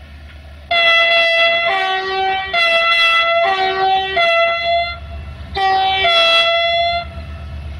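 Horn of a CFR Class 64 Sulzer diesel-electric locomotive sounding in alternating high and low tones for about four seconds, then a second, shorter blast about half a second later. A steady low diesel engine rumble runs underneath.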